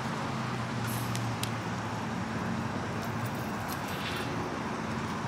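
Steady low hum of a running vehicle engine over road traffic noise, with a few faint ticks about a second in.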